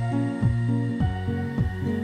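Background music: sustained synth chords over a steady beat, the chords changing about a second in.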